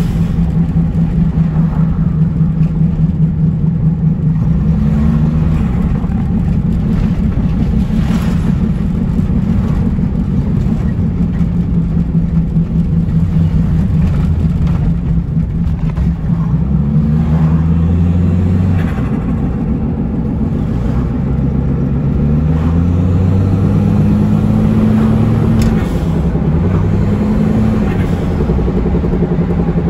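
Toyota Glanza Turbo's 1.3-litre turbocharged four-cylinder engine heard from inside the cabin while driving. Its pitch climbs under acceleration and drops back at each automatic gear change, several times over.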